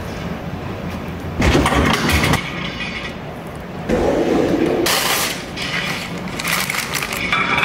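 Short bursts of kitchen handling noise: a fork scraping and flaking cooked salmon on a ceramic plate, and parchment paper crinkling as it is laid over the plate.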